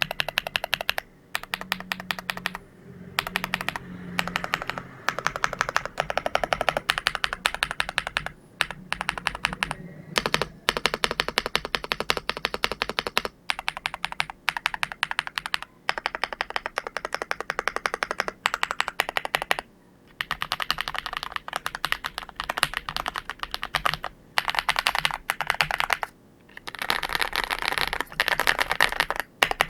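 MCHOSE GX87 mechanical keyboard with Matcha Latte switches being typed on: fast runs of keystroke clacks, broken by brief pauses every few seconds.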